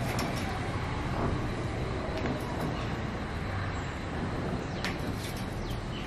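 Steady outdoor background noise with distant traffic, and a few quick, high bird chirps falling in pitch near the end.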